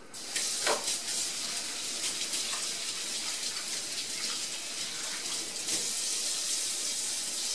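Kitchen faucet running into a sink while hands are washed under it: a steady hiss of water that comes on just after the start.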